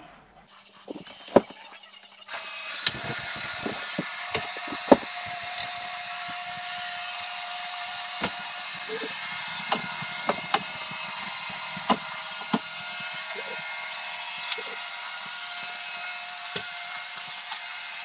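Robot vacuum cleaner running: a steady motor and suction noise with a constant whine and scattered clicks and knocks. It gets clearly louder about two seconds in, the sign of the vacuum detecting carpet and switching to maximum suction.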